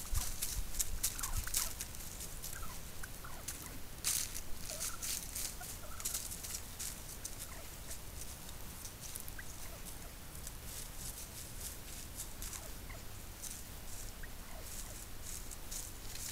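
Wild turkeys moving through dry leaf litter, with irregular rustling and crackling of the leaves and a louder flurry about four seconds in. Scattered faint short turkey calls sound now and then.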